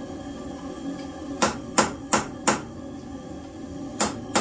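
Hammer blows on a tool at the timing sprocket on the crankshaft snout of a Chevy V8 block: four quick, sharp metal strikes about a third of a second apart, then two more near the end.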